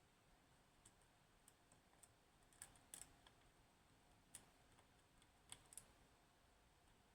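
Faint, irregular clicks of a lock pick working the pins of a DOM S five-pin pin tumbler lock, with a few sharper clicks around three and five and a half seconds in.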